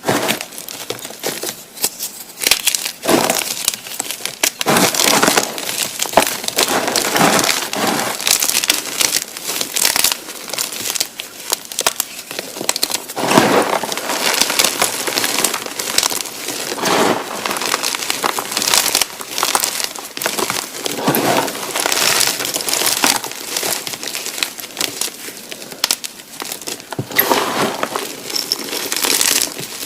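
Blocks of gymnastic chalk being crushed and crumbled by hand, in a continuous run of irregular gritty crunches and crackles.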